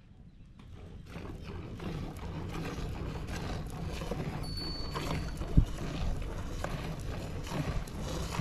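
Hand milking: repeated squirts of milk from a cow's teats into a steel pail, over a low rumble of wind on the microphone. One sharp thump about five and a half seconds in.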